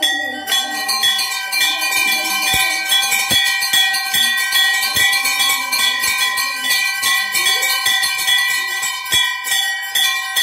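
Temple bells rung rapidly and without a break, a fast run of metallic strikes over a steady ringing tone, during worship before the deity's shrine.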